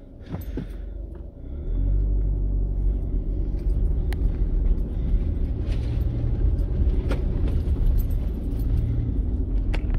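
A vehicle driving along a gravel road: a steady low rumble of engine and tyres that gets louder about two seconds in, with a few sharp ticks from stones.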